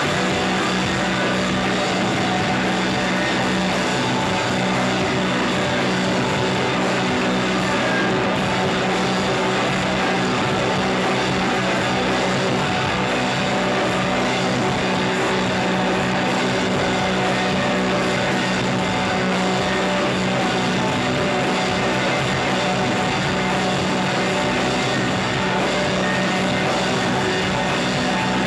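Shoegaze rock band playing live: a dense, loud wash of electric guitars over a steadily held low note.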